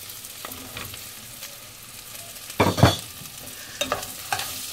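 Pieces of drumstick (moringa pod) being stirred into onions frying in a non-stick pot with a spatula: a steady quiet sizzle, a loud scrape about three seconds in, then a few knocks of the spatula against the pot near the end.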